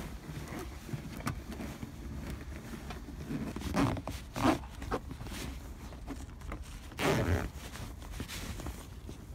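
Fabric rustling and swishing as a sofa cover is pulled over the seat and tucked into the crevice, with louder swishes about four seconds in and again near seven seconds.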